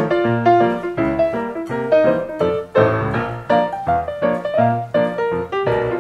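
Background piano music: a light tune of quick, evenly paced notes.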